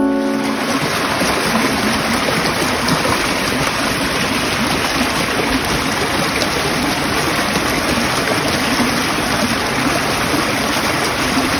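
Shallow stream flowing fast over rocks and stones, a steady, even rush of water.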